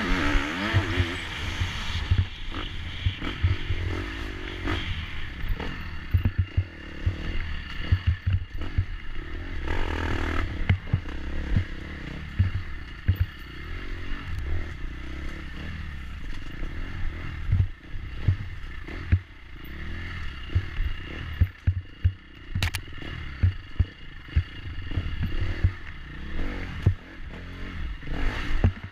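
Dirt bike engine running with the throttle opening and closing, its revs rising and falling, heard from an onboard camera. Frequent sharp knocks and rattles run through it as the bike goes over rough, rooty trail.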